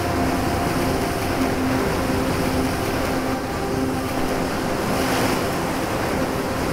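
Ocean surf, a steady wash of waves with a louder rush of breaking water about five seconds in, over soft background music with sustained notes.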